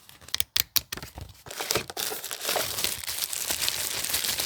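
Packaging being handled while a fingerprint door lock is unboxed: a few sharp knocks and clicks in the first second and a half, then continuous crinkling of the wrapping.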